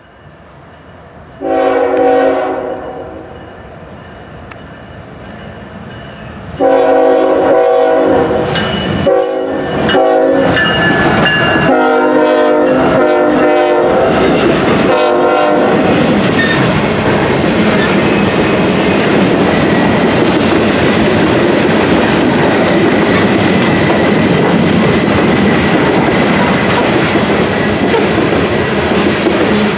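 CSX freight train's diesel locomotive sounding its air horn in a series of chord blasts as it approaches, the last held longest. The locomotive then passes close by, followed by a string of covered hopper cars, with a loud, steady rumble and wheel clatter on the rails.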